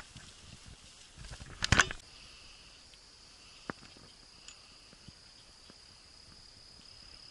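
Insects calling in the forest with a steady high-pitched buzz. A brief loud rustle comes a little under two seconds in, and a single sharp click follows about two seconds later.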